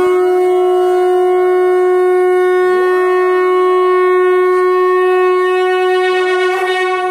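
A conch shell blown in one long, steady, unbroken note, with a dog howling along; its howls rise in pitch about three seconds in and again near the end.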